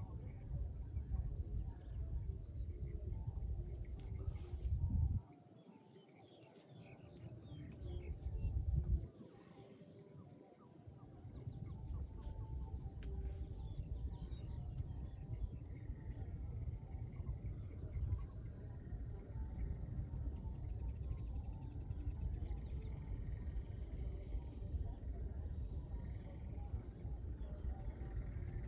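A cricket chirping in short trills of four or five quick pulses, repeated every second or two, over a steady low rumble with scattered small crackles. The rumble drops away twice for a second or two in the first half.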